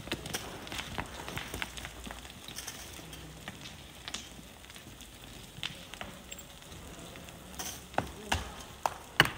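Sand and gravel being dug and scraped by hand: an irregular crackle with scattered clicks of stones, and a few sharper knocks near the end.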